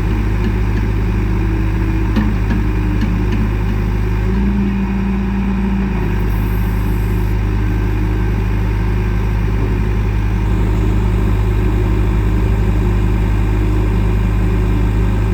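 John Deere 310SG backhoe loader's diesel engine idling steadily, with a brief change in tone about five seconds in and running slightly louder from about ten seconds in.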